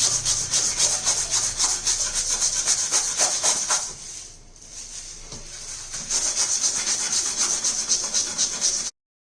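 Bicycle disc brake rotor rubbed back and forth on sandpaper in quick scraping strokes. The scraping eases off briefly in the middle, then picks up again and cuts off abruptly near the end. This is the sanding that takes the shiny, contaminated glaze off the rotor so the disc brake stops screeching.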